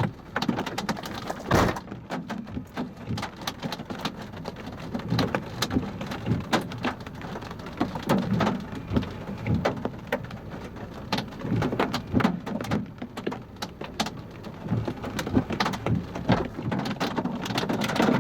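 Raindrops striking the car, heard as many irregular sharp taps over a steady low rumble, with one louder hit about a second and a half in.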